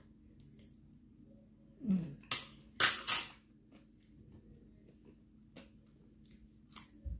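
Eating sounds from a person at a meal of pickled shrimp and raw vegetables: a short falling hum about two seconds in, then three loud, sharp, noisy sounds in quick succession, and a softer bite near the end.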